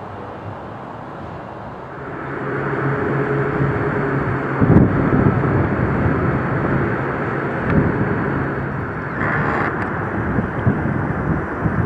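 Running noise of a moving vehicle heard from on board: a steady hum with road or track rumble that gets louder about two seconds in, with a couple of knocks along the way.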